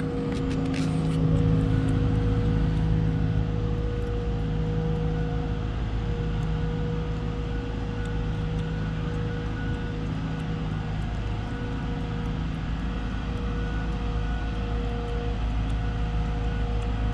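Engine of a large travel-lift boat hoist crane running steadily as it moves, a continuous mechanical hum with several held tones over a low rumble.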